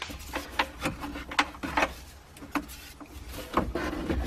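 Toyota pickup's dash pad clicking and knocking against the dashboard frame as it is wiggled loose, about nine irregular sharp clicks, the loudest about three and a half seconds in.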